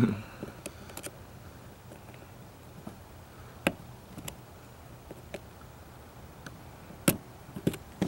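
Light, scattered clicks and taps of a small metal pick against the plastic and metal parts of a turn signal switch as it is worked at, about ten sharp clicks with the loudest near the end.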